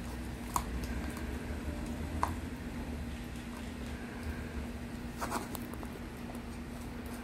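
Small handling sounds: a few soft clicks and rustles of a plastic cup and wooden skewers as mini marshmallows are picked out and pushed onto the skewers, over a steady low hum.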